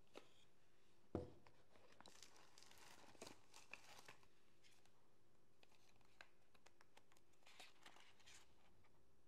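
Faint packaging handling: a single sharp knock about a second in, then tissue paper rustling and crinkling for a couple of seconds as small cardboard boxes are lifted out, with a little more rustling near the end.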